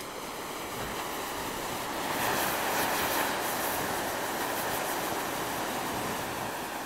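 A sheet of paper burning: a steady rush of flame with fine crackling. It builds over the first couple of seconds and dies away near the end.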